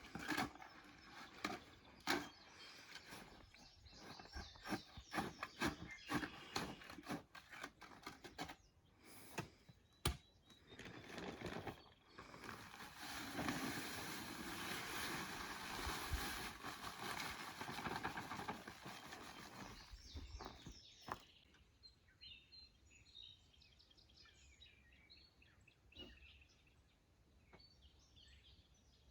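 A bag of concrete mix being poured into a post hole: scattered knocks and rustles of handling, then a steady rushing pour lasting about eight seconds. After the pour stops, birds chirp faintly.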